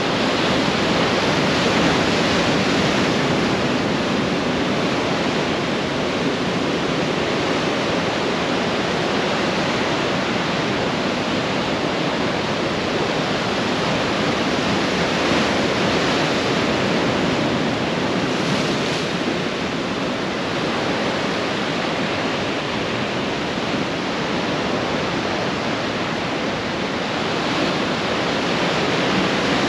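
Ocean surf breaking and washing up a sandy beach: a steady rush of waves that swells a little now and then as a wave breaks.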